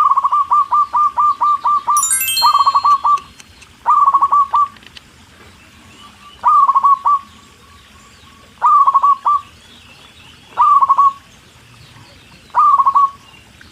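Bird calls: an opening run of quick repeated notes, then short bursts of three to five notes every two seconds or so.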